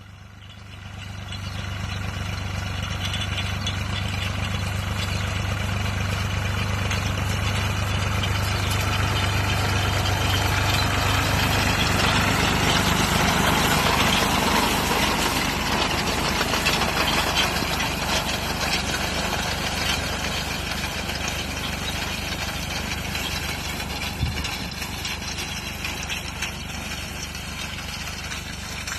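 IMT diesel tractor engine running steadily under way. It grows louder over the first two seconds, is loudest around the middle, then eases off a little.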